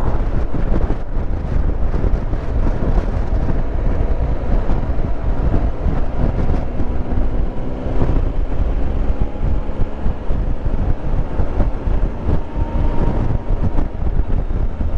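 Heavy wind buffeting on the microphone of a motorcycle at road speed, over the steady running of a Triumph Tiger Explorer 1200's three-cylinder engine.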